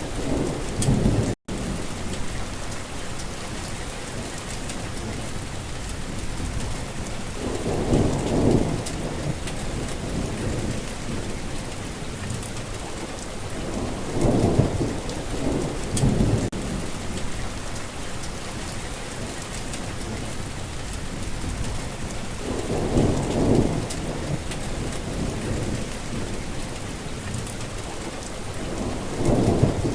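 Heavy rain falling steadily, with thunder rumbling low four times, about every six to eight seconds. The sound cuts out for a split second about a second and a half in.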